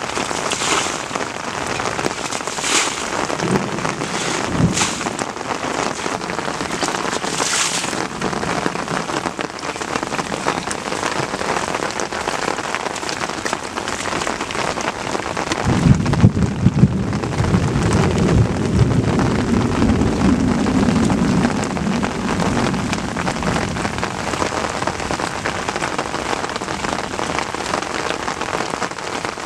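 Steady rain-like hiss of water over the muddy rice field, with a few short splashes in the first eight seconds and a low rumble from about 16 to 22 seconds.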